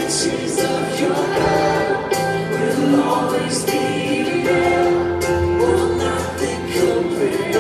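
Live worship band playing, with voices singing along over sustained chords, a held bass note in the middle and regular cymbal strokes.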